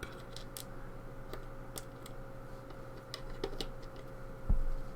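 Small metal parts of a pin-tumbler lock being taken apart by hand: scattered light clicks and taps of pins and tools, with a dull knock about four and a half seconds in.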